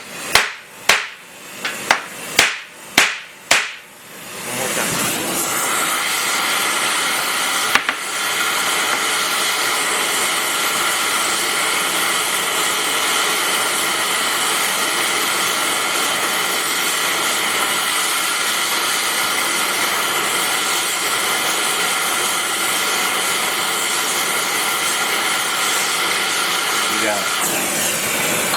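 Power hammer driving a hot flat-head steel rivet: several short sharp blows, then a steady, continuous hammering run of over twenty seconds that stops abruptly near the end.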